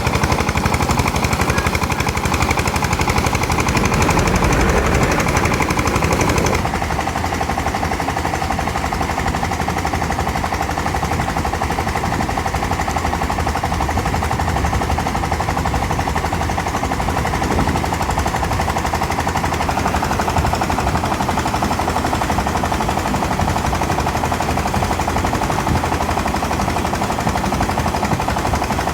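Engine driving an 8-inch irrigation pump, running steadily with a rapid, even firing beat. About six and a half seconds in the sound drops a little and turns duller, then stays steady.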